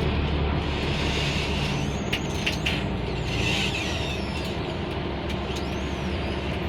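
Volvo B10M bus's diesel engine running steadily, with a few sharp clicks about two seconds in.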